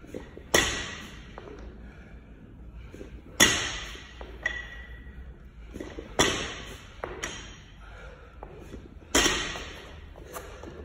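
Barbell with rubber bumper plates landing on the gym floor four times, about every three seconds, during repeated ground-to-overhead lifts. Each landing is a sharp thud with a brief metallic ring from the steel bar, and there are lighter knocks between landings.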